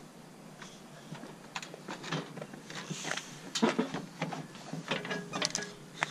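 Plastic front bumper cover of a Nissan R33 Skyline being handled and pushed into place on the car's nose: a run of clicks, knocks and short plastic creaks, starting about a second and a half in.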